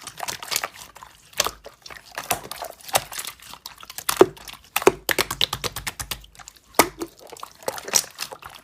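Slime being squeezed and pressed by hand, making irregular crackling pops and squelches.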